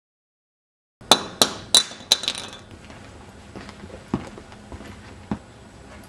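After a second of dead silence, four sharp metallic clanks in quick succession, each with a brief high ring, then a few fainter knocks.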